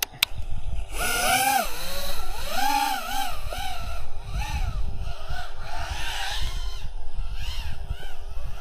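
FPV racing quadcopter's brushless motors whining, the pitch swooping up and down again and again with the throttle, over a rush of wind. The motors spool up about a second in, and the quad is flying on a damaged propeller.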